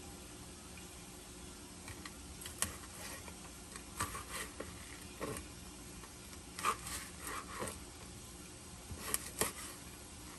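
Chef's knife chopping crisp cooked bacon on a plastic cutting board: short, irregular taps as the blade comes down on the board, about one every second or so.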